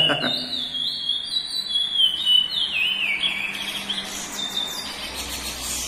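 Male curió (chestnut-bellied seed finch) singing a long phrase of clear whistled notes that step up and down, turning buzzier near the end. Its owner calls the song type a classic "praia" song.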